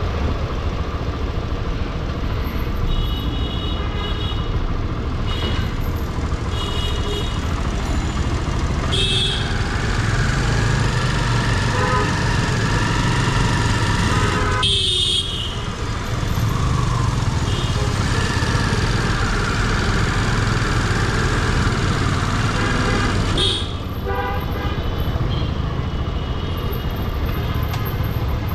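Road traffic: vehicle and motorcycle engines running steadily, with horns tooting in short blasts several times.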